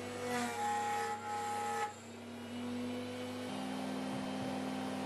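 Router motor running at a steady speed, a steady hum with a higher whine that drops out abruptly about two seconds in.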